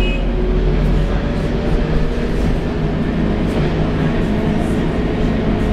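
Scania K230UB bus under way, heard inside the cabin: its Scania DC9 five-cylinder diesel and driveline give a steady low drone with faint steady tones, mixed with road noise.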